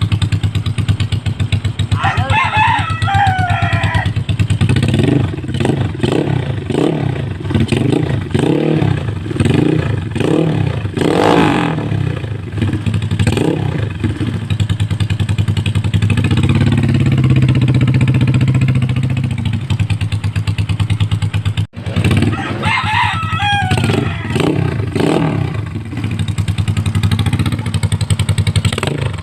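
Yamaha Mio scooter's single-cylinder engine running through its exhaust, revved in repeated short blips about once a second, then held at higher revs for a few seconds before dropping back. A rooster crows near the start and again a little after the middle.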